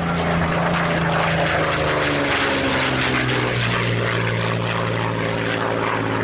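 Propeller aircraft engine droning steadily, its pitch dropping about halfway through.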